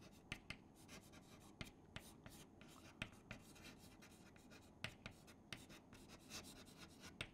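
Chalk writing on a chalkboard: faint, irregular taps and short scratches as letters are written.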